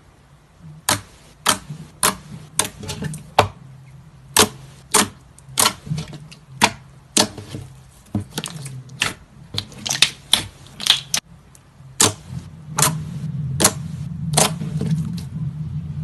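Slime being squeezed and poked by hand, giving a run of sharp, crisp pops and clicks about two a second over a low hum.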